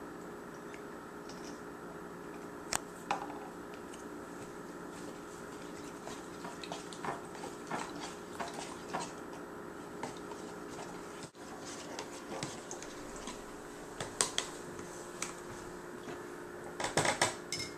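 Plastic spoon stirring and scraping through glue, water and red food colouring in a plastic tub, giving scattered light clicks, over a steady background hum.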